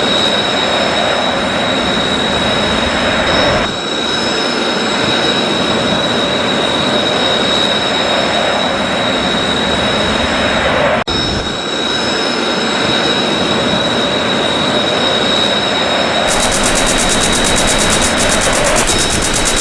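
Recorded F-4 Phantom II jet engine sound effect played by a scale model's built-in sound unit: a steady jet roar with a high whine. It dips briefly twice, with a sharp cut about 11 seconds in, and a rapid even ticking joins it for the last few seconds.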